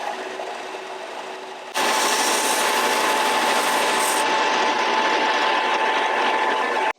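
A power tool running steadily as it shapes a wooden knife handle. It steps up sharply louder just under two seconds in and stops abruptly near the end.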